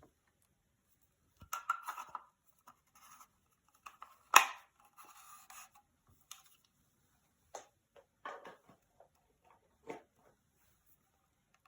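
Handling noises: scattered rustles, scrapes and small clicks, with one sharper knock about four seconds in.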